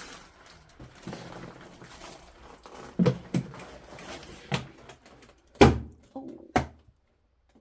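Shuffling and rustling of someone moving through a cluttered room, followed by about five knocks and thumps from objects and the floor, the loudest just over halfway through.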